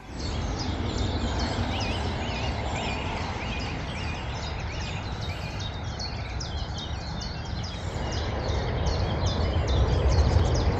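Many birds calling and singing in a chorus of short repeated chirps and some warbling phrases, over a steady low rumble.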